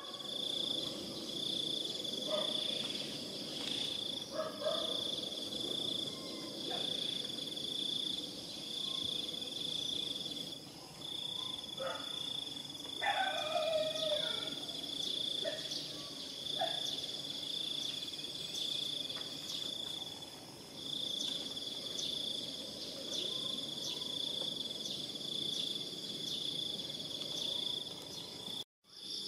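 Insects trilling in a steady high-pitched chorus that pulses on and off about once a second. A few short, faint animal calls break in about halfway through.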